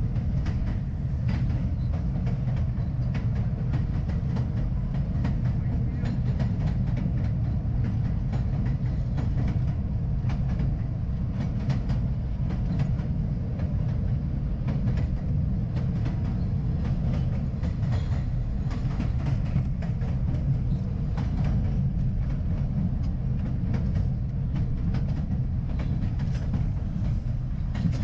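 R62A subway car running at steady speed between stations, heard from inside the car: a continuous low rumble of steel wheels on rail, with faint scattered clicks from the track.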